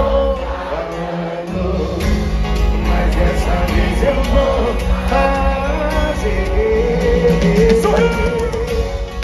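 Loud amplified live sertanejo band with a sung melody, heard through a concert PA. The bass drops out for about a second near the start and then comes back in.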